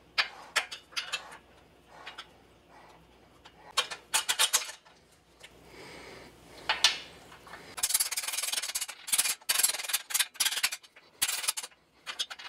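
Rocker arms and rocker shafts being fitted into the cam housing of a Porsche 911 flat-six engine: scattered metal clicks and scrapes, with a longer stretch of rubbing about eight seconds in.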